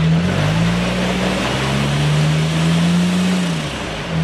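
Supercharged Jeep engine revving and held at high revs under load while climbing a rock waterfall, falling off near the end, over a steady rushing noise.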